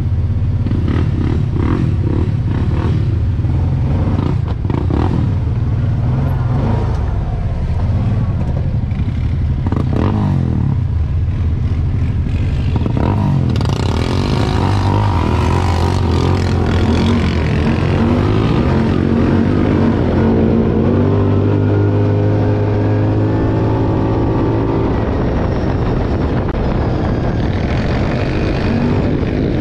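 ATV engine running and revving. Its pitch rises and falls, holds steady for a few seconds past the middle, then climbs again near the end.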